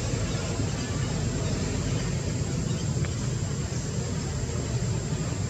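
Steady outdoor background noise: a low, even rumble with a faint high steady tone above it and no distinct event.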